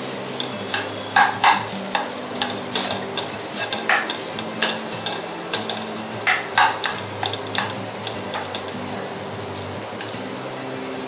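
Spiced mashed potato frying in a hot pan, a steady sizzle, while a spatula stirs it, with frequent irregular scrapes and taps against the pan.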